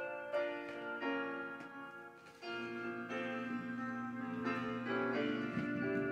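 Instrumental song intro on a backing track, led by piano: a melody of separate notes over held lower notes.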